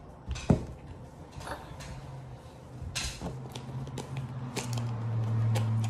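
Plastic slime container handled and its screw cap worked, giving scattered clicks and taps, with a sharp knock about half a second in. A steady low hum comes in about halfway and grows louder near the end.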